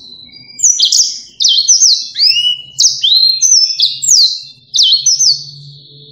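Yellow-fronted canary singing: a fast run of loud, high whistled notes, many of them sweeping down and then up, starting about half a second in.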